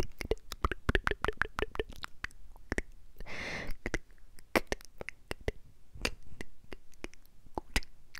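ASMR mouth sounds made right against a clip-on microphone: rapid wet lip and tongue clicks and pops, thick at first and sparser later, with one short breathy hiss about three seconds in.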